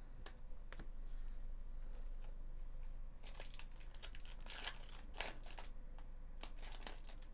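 A 2024 Bowman Chrome trading-card pack's wrapper being torn open by hand, crackling and crinkling in a quick run of short tears from about three seconds in. Before that, only a few faint clicks of cards being handled.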